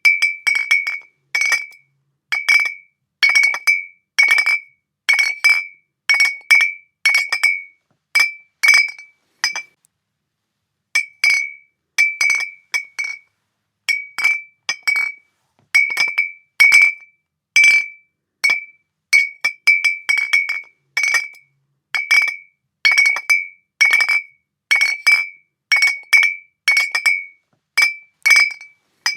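Glass bottles clinking together again and again at an uneven pace, about one to two clinks a second. Each clink rings briefly at the same bright pitch. There is a short pause about ten seconds in.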